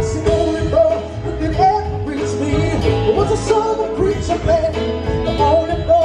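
Music: a singer's voice carrying a gliding melody over steady instrumental chords.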